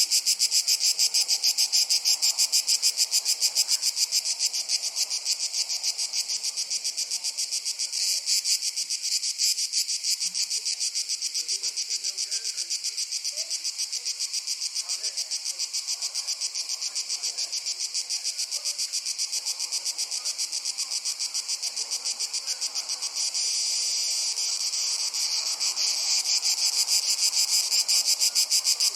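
Crickets chirping in a dense, steady chorus: a fast, even pulse of high-pitched chirps that grows slightly louder near the end.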